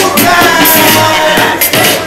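Loud wrestling entrance music with a vocal line over a steady beat, played over the hall's PA as a tag team makes its entrance.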